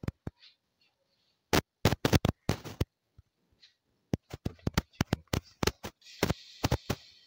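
Spatula knocking and scraping against a stainless steel pan while stirring fried onions and spices, in clusters of sharp clicks. About six seconds in, raw chicken pieces drop into the hot pan and a steady sizzle starts.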